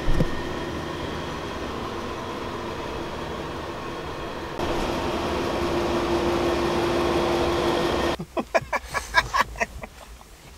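Vehicle driving: a steady rumble of road and engine noise with a steady hum. Near the end it gives way to a quick run of sharp clicks and knocks.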